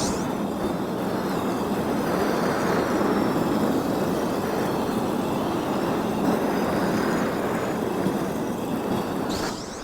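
Marbles rolling along a marble-run track: a steady rolling rumble that fades away right at the end.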